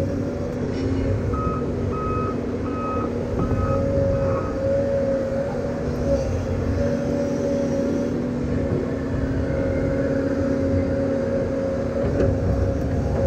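Heavy equipment engine running steadily, with a backup alarm beeping about five times, starting about a second and a half in.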